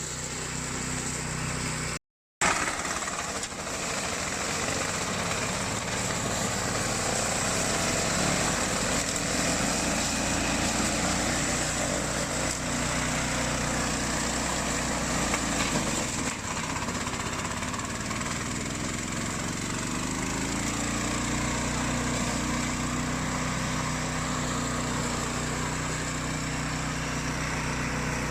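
Remote-control flail mower's engine running steadily under a hiss of cutting noise. The sound cuts out for a moment about two seconds in; around sixteen seconds in the engine note dips, then rises in pitch over the next few seconds and settles.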